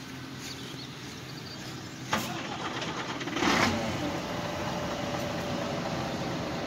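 Heavy diesel engines of farm tractors and a truck running steadily. There is a sharp knock about two seconds in and a louder rush of noise about three and a half seconds in, after which a steady whine joins the engine hum.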